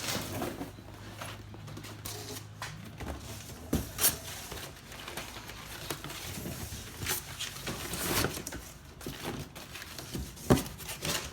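Rustling and scattered clicks and knocks of hands handling and tucking away power wiring, with a low steady hum that stops about three seconds in.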